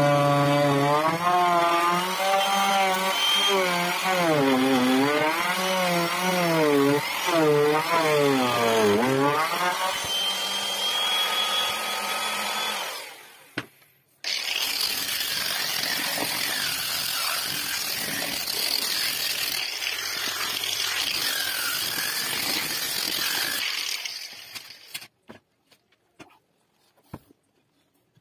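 Electric handheld router cutting a decorative pattern into wood. At first its motor whine dips and recovers in pitch again and again as the bit bites, then it holds a steadier, higher whine. After a brief drop-out it goes on as a noisy cutting rasp, and near the end it falls almost silent apart from a few clicks.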